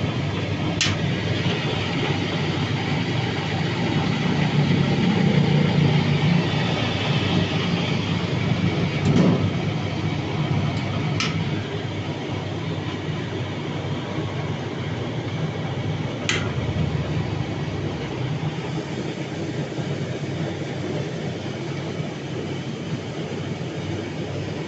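Small potato washing machine running: a steady mechanical rumble, with a few sharp clicks scattered through it.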